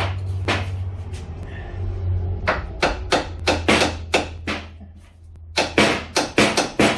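Repeated hammer blows on metal during CV axle and suspension work on a car, in two quick runs of sharp knocks, the second faster, about four blows a second, over a steady low hum.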